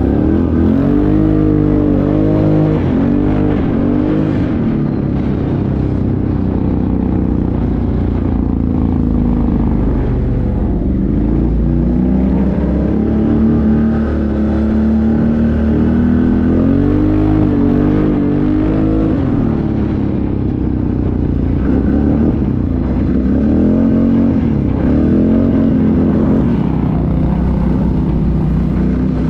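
ATV engine running under way, its pitch rising and falling repeatedly as the throttle is opened and eased, heard from the rider's seat.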